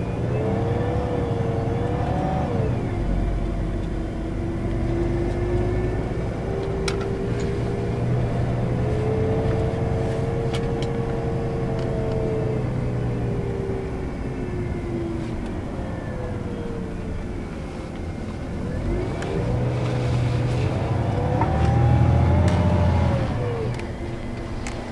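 Iveco Crossway 14.5 LE bus under way, heard from inside the cabin: a low diesel drone with a Voith automatic gearbox whine that rises with speed, drops sharply about two seconds in, and swells and falls away again through the middle before climbing once more near the end.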